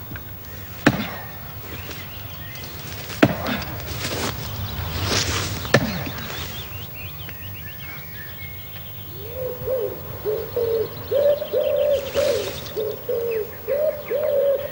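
Woodland birdsong with three sharp knocks a couple of seconds apart. From about nine seconds in, a low pitched call repeats over and over, several times a second.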